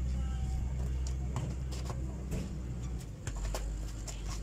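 A basketball bouncing on a packed-dirt court, a few irregular knocks as it is dribbled and handled, over a steady low rumble.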